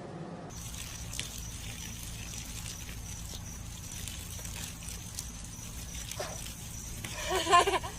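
Steady background hiss and low hum with a few faint clicks, then near the end a short, wavering whine from a dog.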